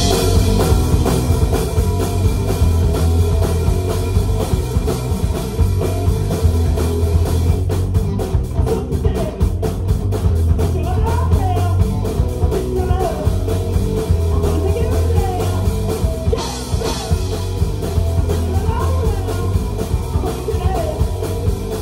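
Live rock band playing a song, with drum kit, bass and electric guitar kicking in together at full volume right at the start.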